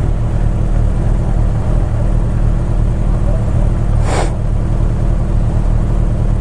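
Motorcycle engines idling at a standstill, a steady low hum, with a short hiss about four seconds in.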